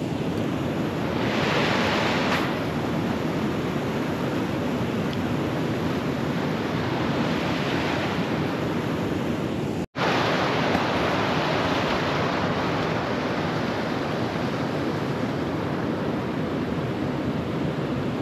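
Steady rushing noise of wind on the microphone, broken by a momentary dropout about ten seconds in.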